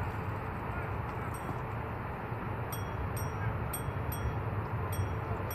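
Steady outdoor background noise with a low rumble, without any distinct nearby event. Faint high ticks repeat about twice a second in the second half.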